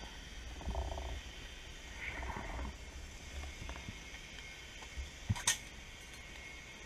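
Underwater sound picked up by the diver's camera: a steady low rumble of water movement with a faint high hiss, swelling briefly twice early on, and a couple of sharp clicks about five seconds in.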